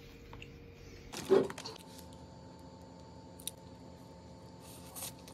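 Quiet eating sounds while biting a battered corndog: a short, fairly loud sound about a second in, a single click, then a brief crisp crunch near the end as the fried batter crust is bitten.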